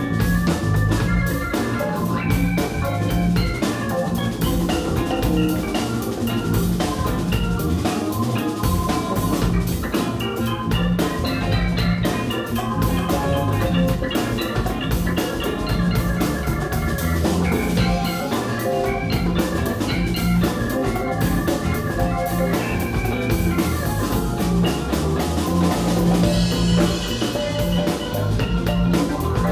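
Live band playing an instrumental passage: drum kit, bass and electric guitar, with a busy melody line on top.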